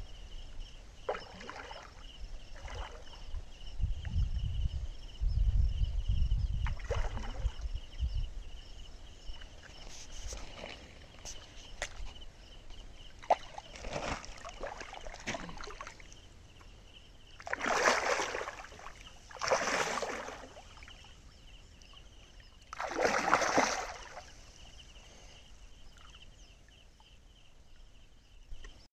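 A large hooked fish splashing at the surface of shallow water as it is played, in several separate splashes of half a second to a second each, the three loudest coming in the second half.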